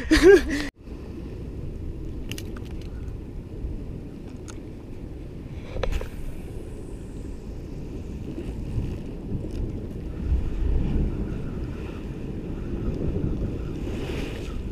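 Wind buffeting the microphone over the sea breaking on the rocks below: a steady low rumble, with a few faint clicks.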